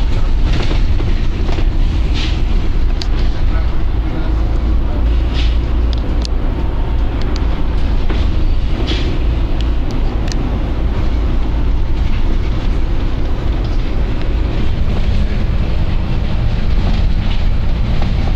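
Volvo B9TL double-decker bus's six-cylinder diesel engine running with a steady heavy rumble, with short hisses of air from the bus's air system now and then, about half a second, two, five and a half, nine and ten seconds in.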